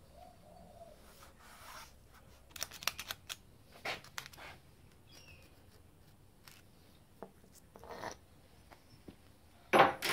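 Scattered short clicks, crinkles and rustles of masking tape and a metal thermostat housing being handled and fitted over a taped engine head, with a louder brief burst of noise near the end.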